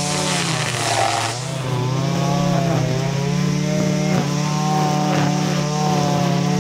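Two-stroke string trimmer running at high revs. The engine eases off about a second in, then revs back up and holds steady.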